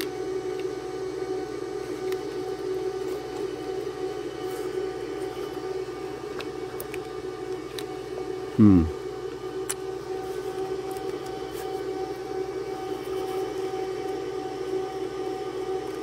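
A steady mechanical whine at a constant pitch, with one short, loud sound falling in pitch about halfway through.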